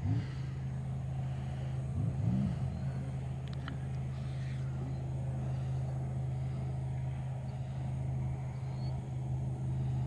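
Car engine idling steadily with a low hum, swelling briefly in pitch about two seconds in.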